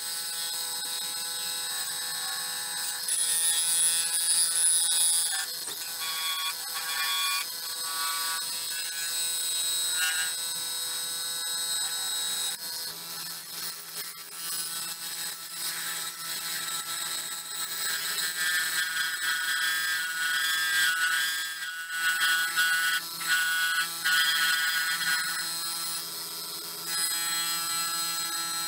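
Gouge cutting a spinning blank of silver maple burl and cast epoxy resin on a wood lathe, with the tool on the blank giving off a steady high ringing whine made of several tones. The pitch of the whine shifts every few seconds as the cut moves.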